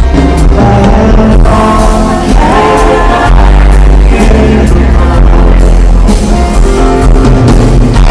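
Live band playing loud music, heard through a phone's microphone, with a heavy bass drum and low end overloading it.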